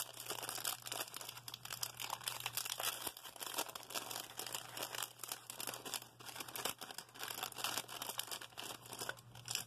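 Clear plastic wrapper crinkling as it is handled and pulled open by hand, an irregular run of small crackles.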